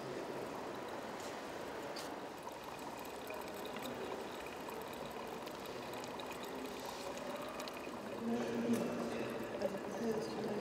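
Steady soft trickle of water, with faint voices coming in over the last couple of seconds.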